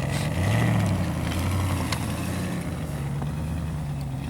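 Off-road vehicle's engine running under throttle, its pitch rising and falling, with a sharp knock about two seconds in.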